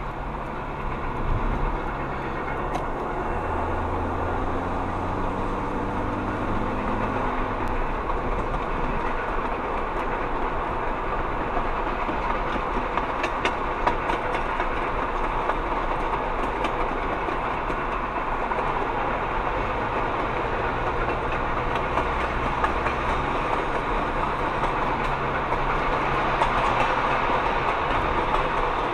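Passenger coaches of a train rolling steadily along the track, heard from inside a car driving alongside, with a few wheel clicks about halfway through. The car's own low engine hum and road noise run under it.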